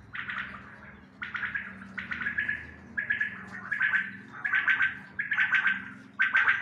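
Caged quails calling: a run of short, rattling bursts of rapid pulses, about eight of them, coming roughly once a second.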